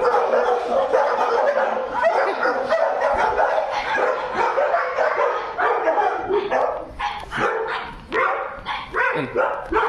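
Dog barking and yipping almost without pause, with a brief lull about eight seconds in.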